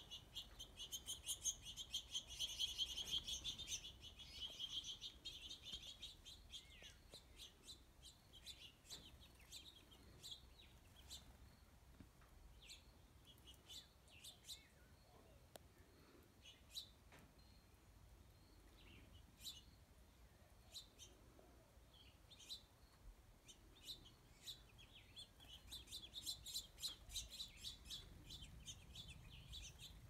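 Small birds chirping: fast runs of high, thin chirps at the start and again near the end, with scattered single chirps in between.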